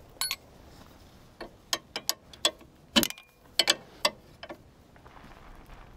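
Sharp clicks and knocks, a dozen or so at uneven intervals over about four seconds, from tools and parts being worked under a car while freeing a front suspension control arm.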